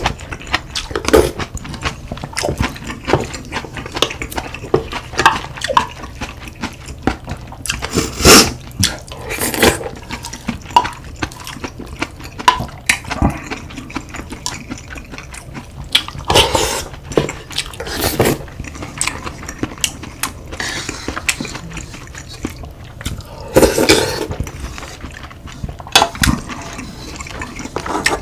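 Eating sounds: a spoon and chopsticks knocking against bowls many times, with liquid slurping sounds as spicy beef soup is eaten.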